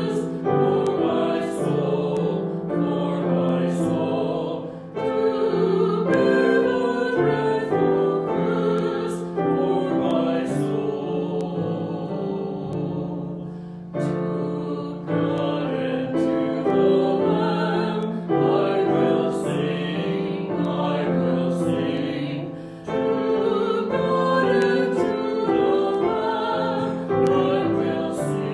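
A hymn sung with piano accompaniment, in phrases with short breaks between them.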